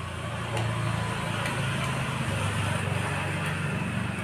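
Steady low rumble of nearby road traffic, a little louder from about half a second in. A few faint clicks come as a screwdriver works a switch's terminal screws.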